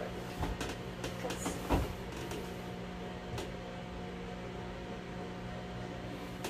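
Steady electrical hum, with a few light clicks and knocks.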